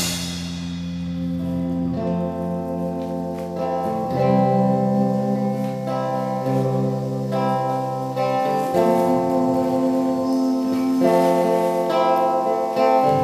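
A live band's instrumental intro: guitars and bass guitar holding chords that change every second or two, just after a drum fill stops at the start.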